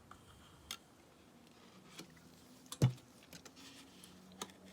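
Scattered light clicks and taps of paper and craft supplies being handled on a tabletop, with one louder knock a little under three seconds in.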